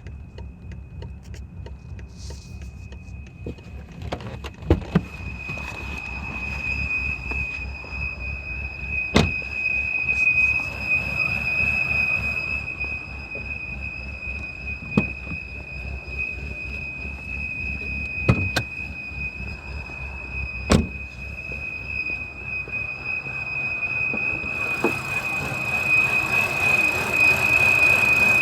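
BMW N52B30 3.0-litre straight-six engine running with a steady high-pitched whistle. The whistle grows much stronger about five seconds in and holds one pitch, over a low running rumble with a few sharp knocks. A louder rushing noise joins near the end.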